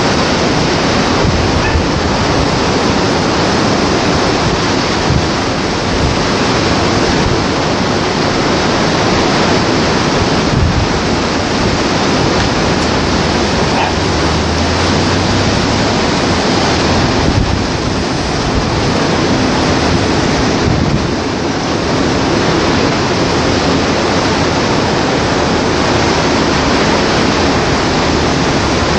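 Heavy surf breaking, a loud steady wash of noise, with wind and passing road traffic mixed in.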